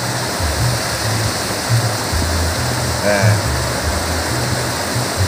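Water pouring steadily over a small concrete weir beside a canal sluice gate, a constant rushing wash. A short voice is heard briefly about three seconds in.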